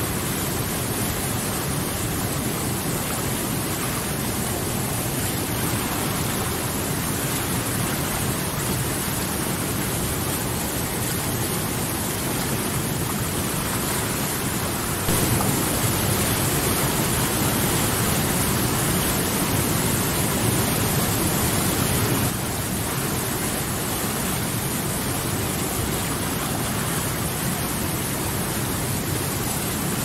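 Whitewater rapids of a mountain river rushing over boulders: a steady, full rush of water. It turns a little louder for about seven seconds in the middle, starting and stopping abruptly.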